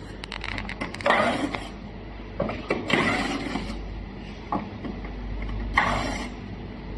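Mechanical clicks and three short rasping, scraping bursts from a small device's parts being worked apart by hand during disassembly.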